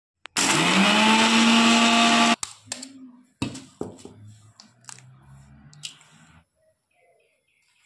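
Electric mixer grinder with a steel jar running for about two seconds, its motor whirring up to speed and then stopping abruptly. A few light taps and clicks follow.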